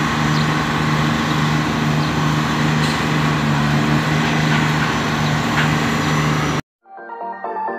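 Diesel engine of a mobile crane running steadily under load as it lifts, with an even low hum. It cuts off abruptly about six and a half seconds in, and electronic music fades in near the end.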